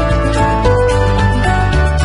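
Background music with a steady beat, a strong bass line and held melody notes.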